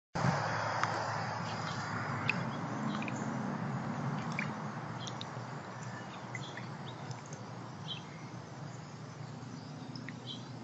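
Birds chirping now and then, short scattered calls over a steady background hiss.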